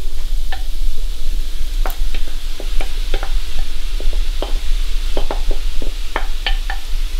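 Wooden spoon scraping and knocking against a ceramic bowl as chicken and mixed vegetables are tipped into a frying pan, in irregular clicks over a steady sizzle from the hot pan.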